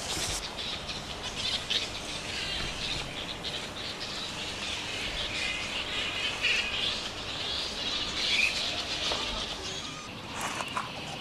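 Flying foxes giving high-pitched squeaks and chirps, irregular and overlapping.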